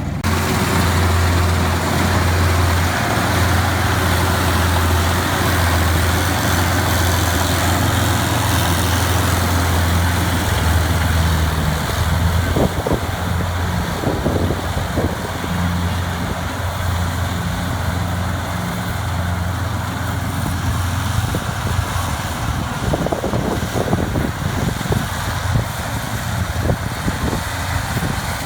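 Diesel engine of farm machinery in a paddy field running at a steady speed, with a few short knocks around the middle and again near the end.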